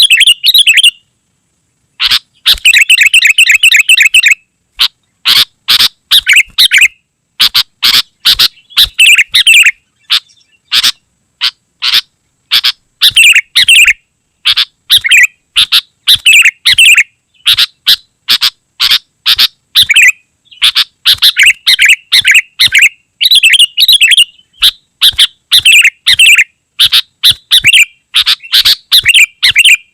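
Sooty-headed bulbul singing loudly in very dense, rapid runs of short chattering whistled phrases, which stop briefly about a second in and then go on with little pause.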